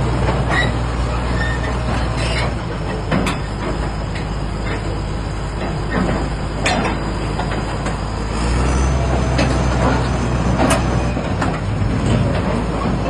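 Excavator's diesel engine running, its note changing twice as the load shifts, with sharp metallic clanks every few seconds.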